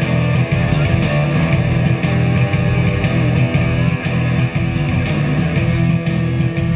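A live rock band playing loudly at a sound check, with electric guitar to the fore over a heavy bass and a steady beat.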